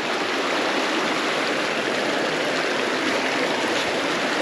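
Mountain creek water rushing and splashing over rocks, a steady, loud flow.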